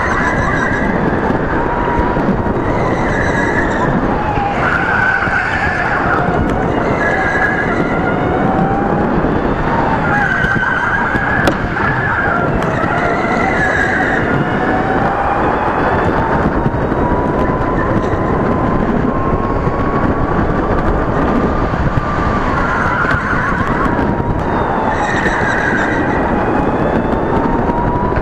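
Electric go-kart motor whining from on board, its pitch sinking and climbing again with the kart's speed through the laps, over a steady chassis and tyre rumble. Short tyre squeals come again and again as the kart slides through the corners.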